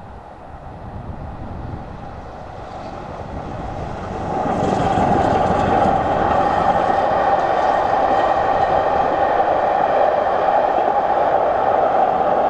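BR Standard Class 7 steam locomotive 70000 'Britannia' and its train passing at speed. The sound builds over the first four seconds, then becomes a loud, steady rush of the locomotive and coaches going by from about four and a half seconds in.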